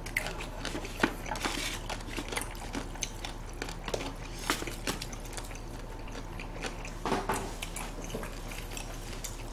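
Close-miked chewing and mouth sounds of people eating braised pork trotters (jokbal) and boiled pork, with wet smacks and occasional sharp clicks.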